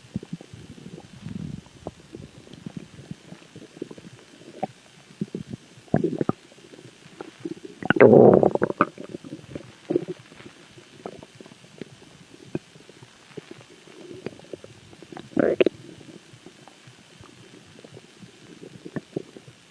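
Stomach growling: a string of irregular low gurgles and squelches, with a louder, longer rumble about eight seconds in and another shorter one about fifteen seconds in.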